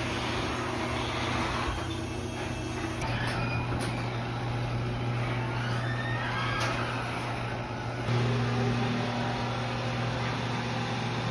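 Garage door running on its opener, with a steady motor hum under scraping and squeaking from the rollers and hinges: the door needs lubricating.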